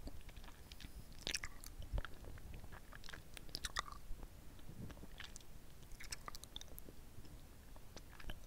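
Close-miked mouth sounds of a red hard-candy lollipop being sucked and licked: irregular wet smacks and small clicks of lips and tongue on the candy, as it is taken into the mouth and drawn out again.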